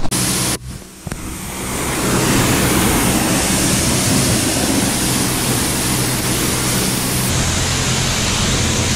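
High-pressure car-wash wand spraying water: a steady loud hiss that builds from about a second in, with a low steady hum under it and a duller tone near the end.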